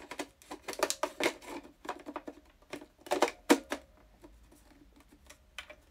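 Irregular plastic clicks and taps from handling and fitting together the parts of a small rechargeable handheld vacuum cleaner, the sharpest click about three and a half seconds in. It goes quieter for the last two seconds.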